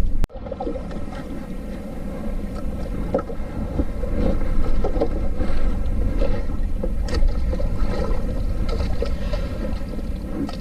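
Wind on the microphone and choppy sea water splashing and lapping against the hull of a small outrigger boat, an uneven run of small splashes over a low rumbling wind noise.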